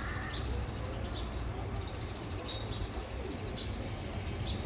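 Faint bird chirps, short and spaced about a second apart, over a steady low rumble.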